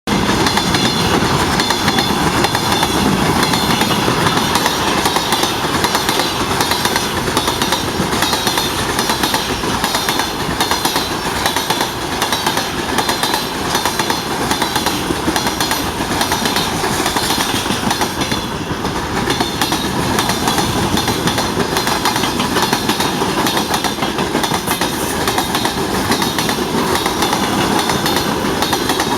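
A freight train's wagons rolling past, their wheels clacking over the rail joints in a steady stream of knocks.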